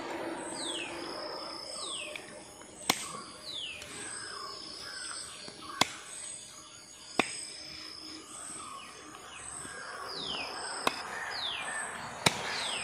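A large kitchen knife chopping raw duck on a wooden cutting board: five sharp knocks, irregularly spaced one to four seconds apart. Birds chirp throughout, with short falling whistles.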